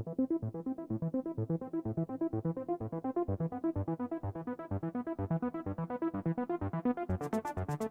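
Electronic background music: a quick run of short repeated keyboard notes, about five a second, with a high ticking beat coming in near the end.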